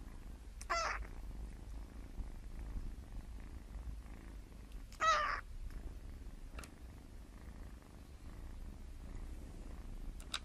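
A young kitten gives two short, high-pitched mews about four seconds apart, over a faint steady purr.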